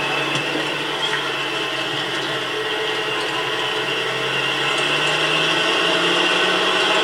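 Jeep CJ5 Renegade engine running as it drives slowly, heard from inside the vehicle, its hum rising a little in pitch about four to six seconds in as it picks up speed.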